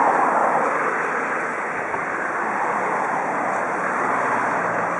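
Steam hissing from the DR Class 18 201 steam locomotive, a steady rushing hiss that swells at the start and again about four seconds in.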